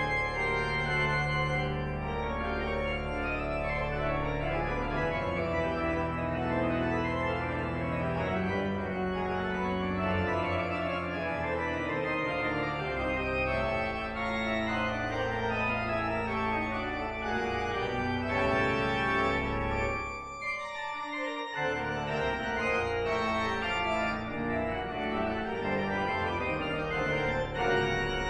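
Church organ playing a dense, sustained chordal passage on manuals with pedal bass. About two-thirds of the way through, the pedal bass drops out and the sound briefly thins before the full texture resumes.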